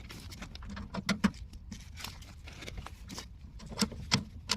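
Light metallic clicks, taps and scrapes of brass flare nuts being handled and threaded by hand onto the air conditioner's copper line-set service valves.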